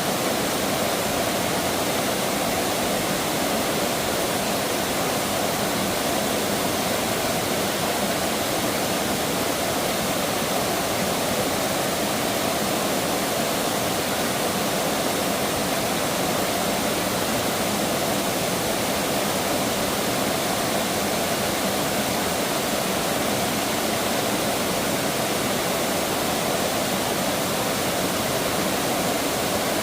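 Steady rush of flowing stream water, even and unbroken throughout.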